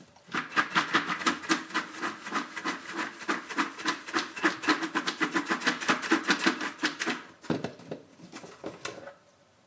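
Popped popcorn being tipped and shaken out of a bowl onto a plate: a quick run of light clicks, about five a second, for some seven seconds, then a few scattered ones near the end.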